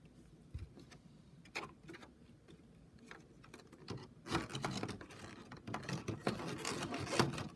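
Hands working a card out of the clear plastic insert of a Pokémon card collection box: a few light plastic clicks, then from about halfway busier scraping, clicking and rustling as the stuck card is pried loose.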